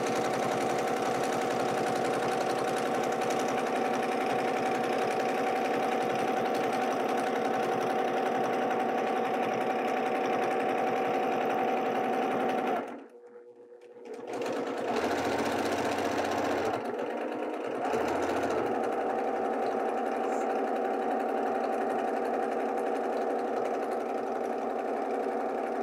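Domestic sewing machine running steadily while free-motion quilting. It stops for about a second near the middle, then starts again, its speed changing a few times before it settles.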